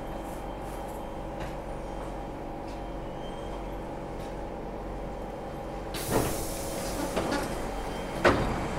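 Steady hum inside a stopped SMRT C651 Siemens train car. About six seconds in, the passenger doors slide open with a sudden rush of noise, and a sharp knock follows near the end.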